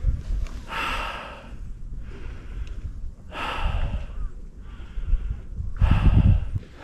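A hiker breathing hard from the uphill climb: three loud breaths about two and a half seconds apart, close to the microphone.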